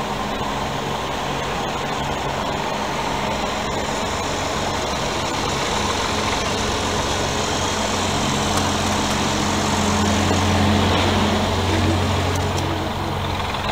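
Large truck engine idling steadily, its low hum growing somewhat louder around ten seconds in before easing back.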